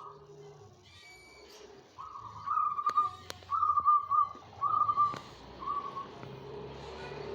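Zebra dove (perkutut) cooing its song: a run of four or five clear whistled notes, starting about two seconds in and ending with a shorter note about six seconds in. A few sharp clicks fall between the notes, and a low steady hum rises near the end.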